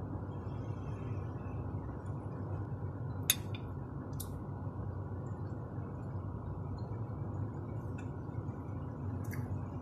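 A metal fork clinks against a ceramic plate about three seconds in, followed by a lighter click a second later, over a steady low hum.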